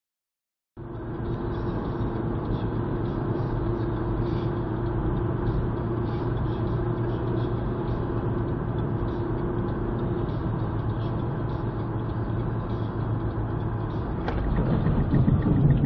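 Road and engine noise inside a moving car, as picked up by a dashcam, starting about a second in: a steady hum with a low drone. A sharp click about 14 seconds in, then louder low rumbling near the end.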